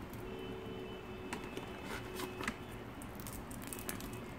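Faint light clicks and rustles of a Kinder Surprise chocolate egg and its plastic toy capsule being handled.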